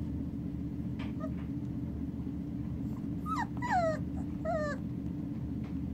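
Ausky puppies whimpering and yipping as they play-fight: a few short cries that fall in pitch, clustered a little past the middle, over a steady low hum.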